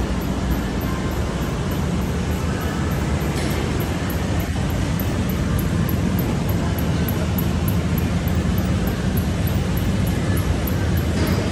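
Steady low drone of background machinery in a vehicle service bay, running evenly with no breaks.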